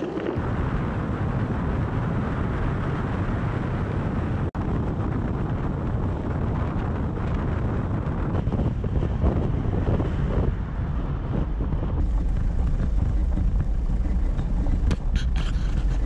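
A ute driving along a sealed road: steady road and engine rumble with wind buffeting the microphone, broken off for an instant about four and a half seconds in.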